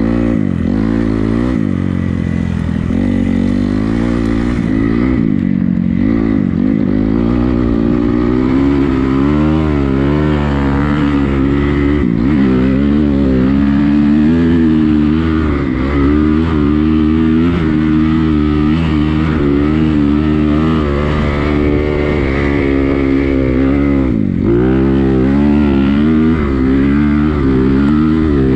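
Honda CRF250R dirt bike's single-cylinder four-stroke engine being ridden, the revs rising and falling over and over with throttle and gear changes. The revs dip sharply near the end.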